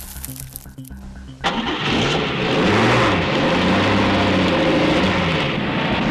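Cartoon vehicle engine sound effect that starts suddenly about a second and a half in and runs loud, its pitch rising and falling as it revs.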